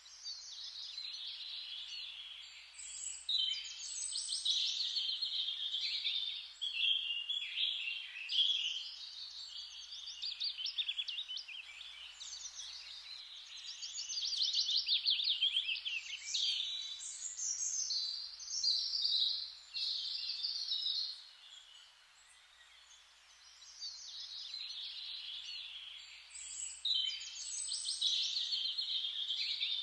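Songbirds singing in a dense forest chorus: overlapping high chirps and fast trills, phrase after phrase, with a short lull about two-thirds of the way through.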